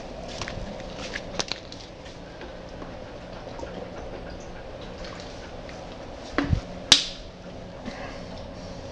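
Steady low room hum with a few scattered small clicks and knocks; a sharp click just before seven seconds in is the loudest sound.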